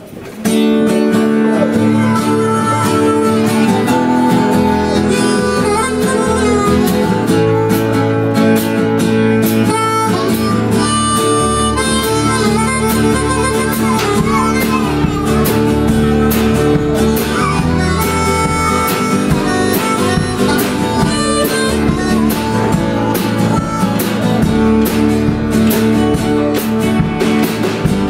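Live country-blues band playing an instrumental passage with no singing: harmonica leads over acoustic guitar, electric bass, pedal steel guitar and drums. The music comes in sharply about half a second in and then runs loud and steady.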